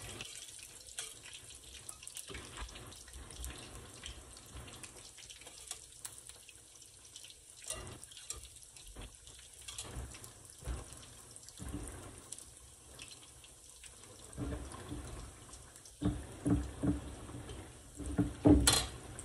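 Shrimp pastelitos frying in a skillet of hot oil: a steady sizzle with small crackles. Over it come clinks of a spoon scooping filling from a metal pan, and in the last few seconds louder knocks as a fork crimps the dough on a wooden cutting board.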